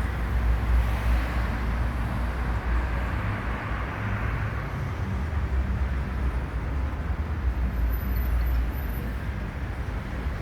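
Downtown street traffic: a steady low rumble of vehicles running and passing.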